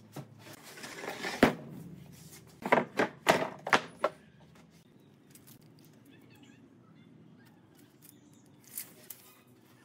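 A series of sharp knocks: one loud knock about a second and a half in, then a quick run of four or five about three seconds in, followed by a faint low hum and two light clicks near the end.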